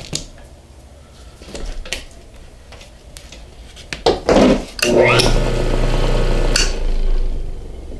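Light metallic clatter of handling, then about five seconds in the old 1/6 horsepower, 1725 RPM bench grinder's electric motor is switched on and runs with a steady hum.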